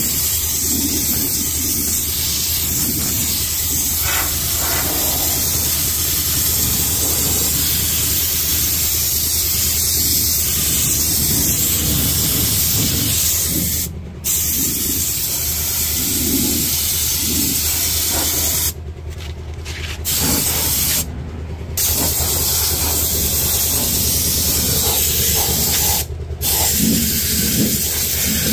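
Compressed-air spray gun spraying rubberised anti-rust underbody coating in a steady loud hiss, which stops briefly four times as the trigger is let go.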